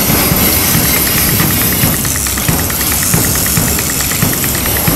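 Boat engine running steadily under a hiss, with a fast, even ticking that joins in about two seconds in.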